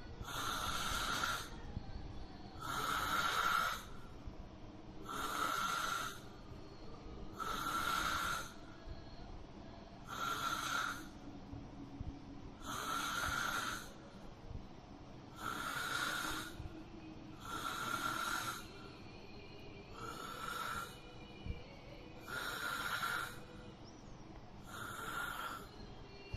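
A sleeping person snoring, one snore about every two and a half seconds, each lasting about a second, in an even rhythm.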